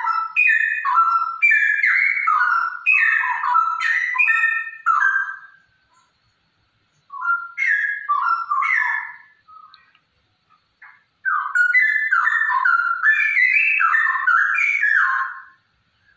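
Female straw-headed bulbul (cucak rowo) singing loud, bubbling whistled phrases in three bouts, with short pauses about six and ten seconds in.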